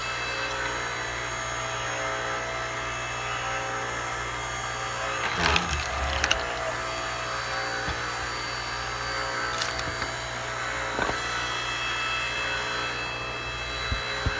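Hydraulic log splitter running with a steady motor hum. About halfway through there is a louder spell of knocking and cracking as a log is split, and a few single sharp knocks follow later.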